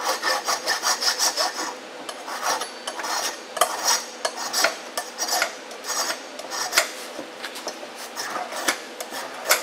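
Hand flat file scraping the inside edge of the bearing-cap bore in a Dana 44 front axle shaft's U-joint yoke ear. It makes a series of short strokes, quick at first and then more spaced, deburring the edge so the C-clip will go back in.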